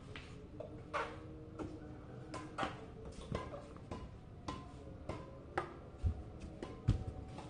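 Casual badminton play on a hard floor: irregular sharp clicks and taps, with two heavier thuds near the end, over faint steady background tones.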